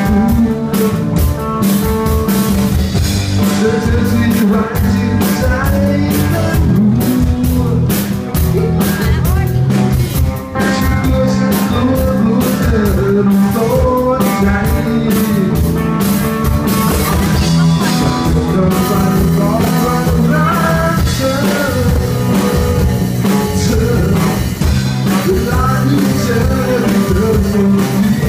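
Live rock band playing: electric guitars, bass guitar and drum kit, with a singer.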